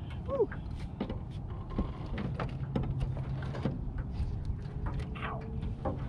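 Scattered knocks and thuds in a small jon boat as a big catfish is hauled aboard and handled on the boat's floor, with a short falling squeak about half a second in.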